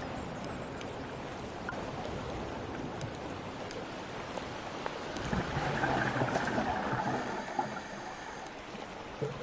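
Underwater sound picked up by a diver's camera: a steady hiss and low rumble of water noise, swelling into a louder rush about five seconds in for a couple of seconds, typical of a scuba diver's exhaled bubbles.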